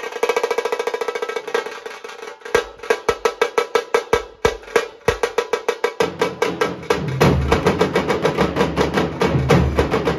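Nashik dhol band: large barrel dhol drums beaten with sticks, led by a smaller tasha drum. Quick light strokes give way about two and a half seconds in to hard, separate bass strikes, and about six seconds in the full group of dhols comes in with dense, heavy drumming.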